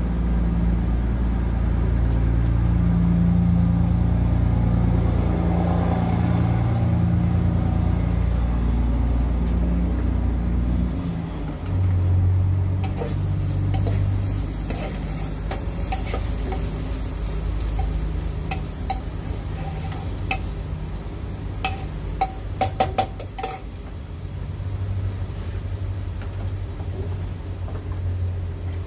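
Kale stems frying in a pan on a gas camp stove, stirred with a metal spatula, with a quick run of sharp taps of the spatula on the pan about three-quarters of the way through. Underneath, an engine runs with a steady low rumble that shifts about a third of the way in.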